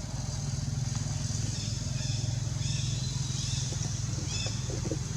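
A small engine running steadily at a low drone. About halfway through, a run of short, high chirps sounds over it.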